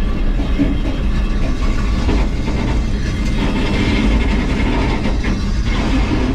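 Tow truck's big-block engine and drivetrain heard from inside the cab while driving: a loud, steady low rumble.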